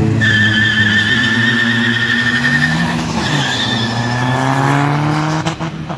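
Drag-race launch: tyres squealing with wheelspin as cars pull away hard from the line, engines revving beneath. The squeal breaks briefly about three seconds in and fades out after about four and a half seconds.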